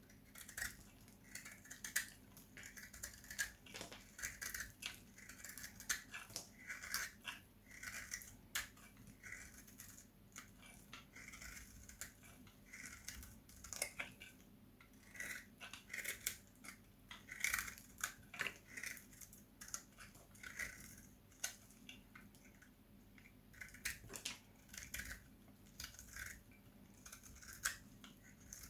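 Knife cutting and shaving bar soap: a run of short, crisp scraping strokes and sharp clicks, about one or two a second at an uneven pace.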